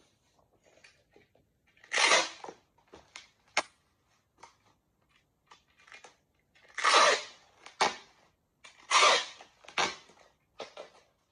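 Clear packing tape pulled off a handheld tape dispenser three times, each a loud screech of about half a second followed shortly by a sharp snap as the tape is cut on the dispenser's blade, with light crinkling of bubble wrap between.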